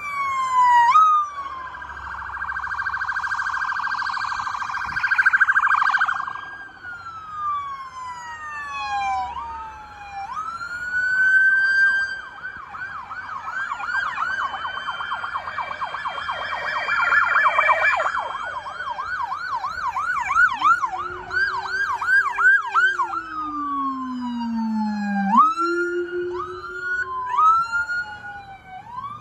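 Police cruiser sirens from several passing cars at once, overlapping: slow rising-and-falling wails throughout, a rapid warble in the first few seconds and a fast yelp in the middle. A deeper-pitched siren sweep joins in the last third.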